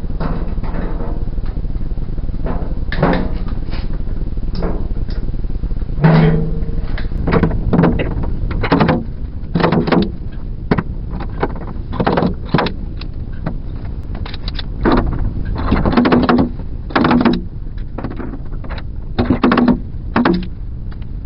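Stud welder dent puller firing a long run of short buzzing zaps, one every half second to a second, as pins are welded onto the dented steel tailgate panel.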